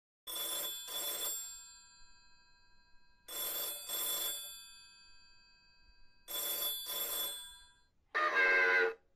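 Bell telephone ringing in the double-ring pattern: three pairs of rings about three seconds apart, each pair leaving a fading bell tone. Near the end comes a short, higher-pitched 'hello' answering it.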